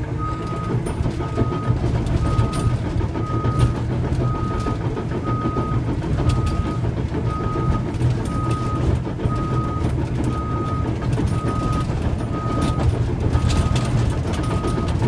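Cat D5K2 XL crawler dozer backing up: its diesel engine and tracks running under a steady rumble, with the reverse alarm beeping about once a second throughout.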